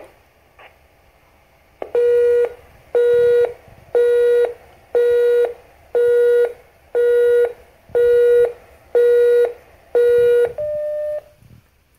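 BellSouth 1195 digital answering system sounding a tone that pulses on and off about once a second, nine times, after a couple of faint clicks. Near the end comes a single slightly higher, quieter beep, which signals that a new message has been recorded.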